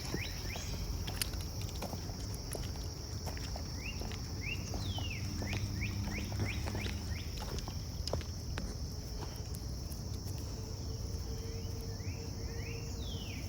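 Outdoor ambience: a steady high buzz of insects, with a bird singing short series of chirps three times, over a low rumble.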